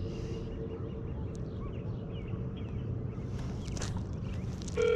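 Wind rumbling on the microphone over open water, with faint bird chirps. Near the end a phone's ringing tone starts loud and steady through the handset's speaker as a call goes through.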